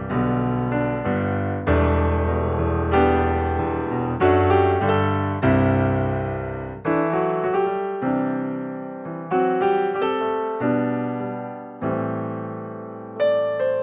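Background piano music: notes and chords struck about once a second, each left to fade.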